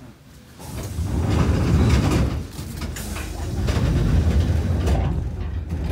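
Resistance-controlled Enshu Railway 1000 series electric train running, heard inside the car: a low rumble of traction motors and wheels on rail that comes up loudly about a second in, eases briefly, then swells again.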